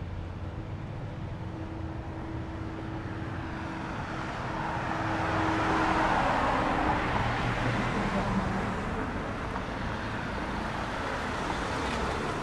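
A car passing on the street: its tyre and engine noise swells to a peak about six seconds in, then fades, over a steady low traffic rumble.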